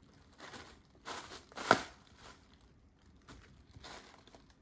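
Plastic air-cushion packaging pillows crinkling in short rustles under a cat's paws, with one sharp, louder crack a little under two seconds in.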